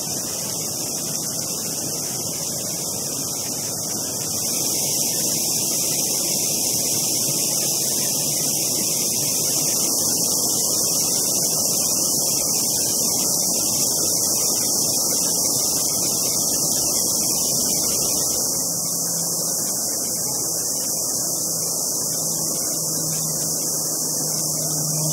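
Waterfall rushing steadily as water cascades down a mossy rock face, a little louder from about four seconds in.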